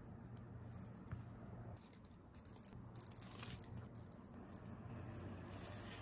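Small beads and glitter rattling and clicking as they are dropped into a resin heart shaker frame, coming in several short clattering bursts from about two seconds in.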